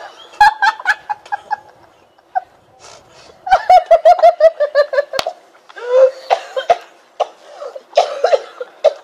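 Women breaking into laughter after trying to hold in mouthfuls of water, in several bursts of rapid ha-ha pulses, the longest about halfway through.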